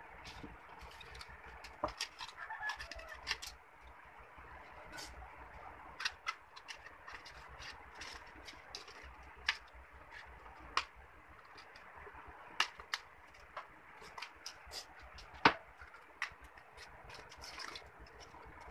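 Small hand scissors snipping through a paper sheet, with irregular sharp snips and paper rustling; the loudest snip comes about three-quarters of the way through.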